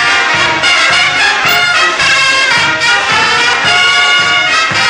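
Brass band music with a steady beat, trumpets and trombones playing together.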